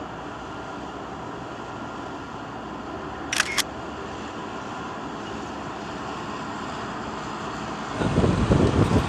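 Steady travel noise of a moving vehicle, with two quick clicks about a third of the way in. Near the end a louder, gusting low rumble of wind buffeting the microphone sets in.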